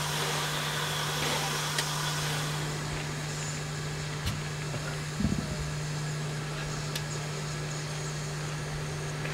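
Narrow-gauge steam locomotive 99 222 standing with steam up, smoking heavily: a steady low hum under an even hiss, with a few faint clicks.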